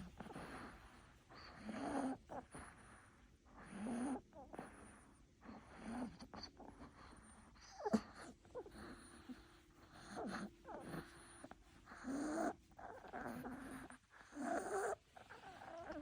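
An old dog wheezing as it breathes, a rasping breath with a pitched edge about every two seconds. The wheezing is from a cold.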